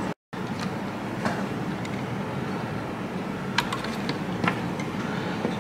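Steady background hum of a workshop fan or air-conditioning, with a few light clicks and taps as small plastic and metal parts of the unit are handled, about four in all.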